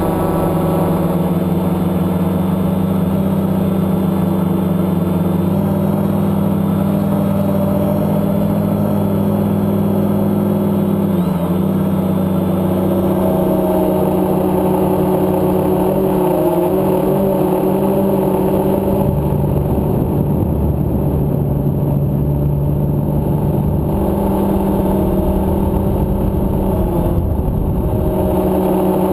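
Electric motors and propellers of a multicopter drone heard from its onboard camera: a loud, steady buzzing hum whose pitch steps up and down a few times as the motor speeds change in flight.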